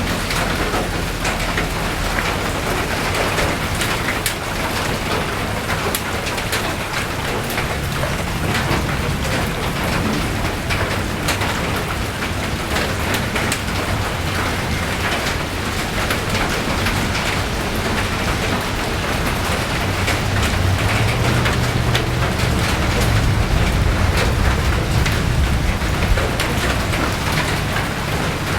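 Steady rain falling, with many separate drops tapping close by. Underneath runs a low rumble that swells in the last third.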